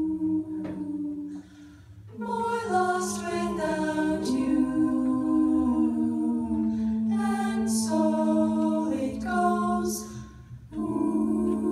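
Small vocal jazz ensemble singing a cappella through handheld microphones, several voices holding close-harmony chords that move in steps. The singing breaks off briefly about two seconds in and again near the end before the next chord comes in.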